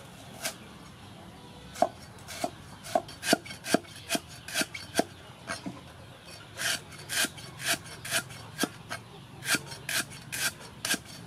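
Cleaver slicing lemongrass stalks into thin rings on a wooden chopping block: a steady run of sharp chops, about two a second, starting about two seconds in with a short pause midway.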